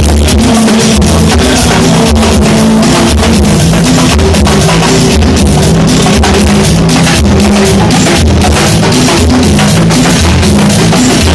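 Loud rock music with a drum kit, bass and guitar, a steady driving beat throughout.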